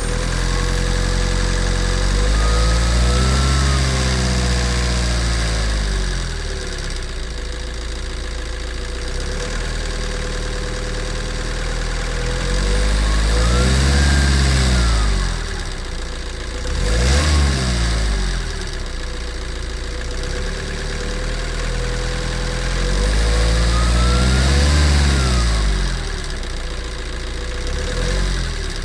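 Warmed-up Tata Safari Dicor 2.2 turbo-diesel engine idling, revved up and back down in three slow swells and a quick blip, with the turbo's whistle rising and falling along with each rev.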